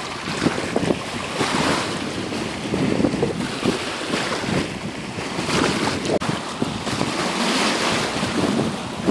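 Wind buffeting the microphone over small lake waves washing and lapping at the shore, swelling and easing every couple of seconds.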